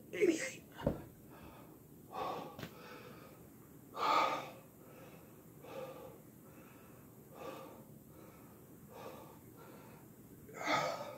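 A man's heavy, gasping breaths while recovering from many push-ups, about one breath every second and a half, loudest around four seconds in and near the end. A low thump about a second in.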